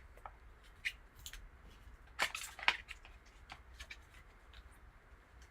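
Trading card packaging being handled and opened: scattered crisp clicks and crinkles, the loudest cluster about two and a half seconds in.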